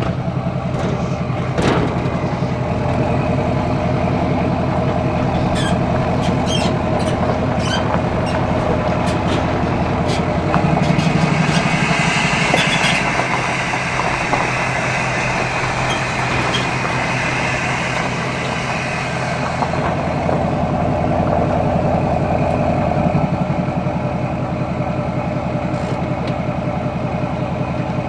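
A vehicle engine running steadily. It gets louder for a couple of seconds near the middle, with a higher whine added, and scattered light clicks and rattles come before and during that stretch.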